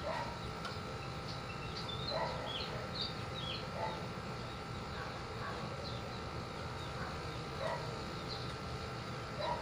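Outdoor ambience with a steady low hum. A few short distant dog barks are spread through it, and small birds chirp a handful of times about two to four seconds in.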